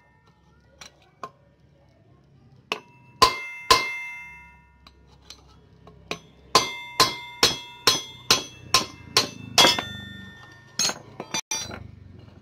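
Steel bar striking a steel drift rod set through a motorcycle's front wheel hub, driving out the worn wheel bearing. The blows ring out as sharp metal clanks: a few spaced strikes, then a quick run of about nine at roughly two a second past the middle, and a few more near the end.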